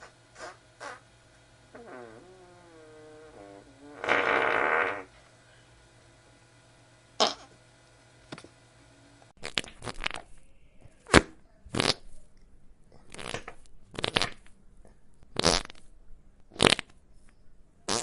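Fart sound effects one after another. A wavering, pitched fart starts about two seconds in and runs into a loud, noisy blast about four seconds in. After a few scattered short pops, the second half is a rapid run of about eight short, sharp farts.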